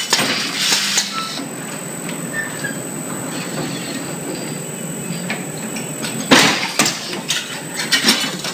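Stainless steel wire hanger welding machine running: clattering knocks at the start, a steadier mechanical running noise through the middle, then a sudden loud burst about six seconds in followed by more clatter.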